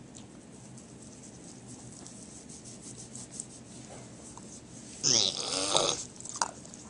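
Pet pig giving a loud call about five seconds in, lasting around a second with its pitch sliding, then a couple of short sharp sounds.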